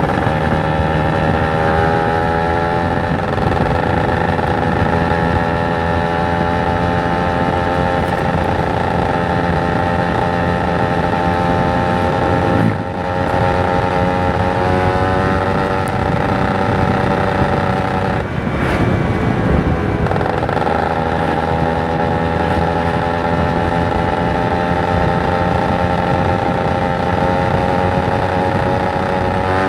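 Kawasaki Ninja 150 RR's single-cylinder two-stroke engine running while the motorcycle is ridden, its pitch drifting slowly with engine speed. Twice, about 13 and 18 seconds in, the sound briefly drops as the throttle is closed, then picks up again.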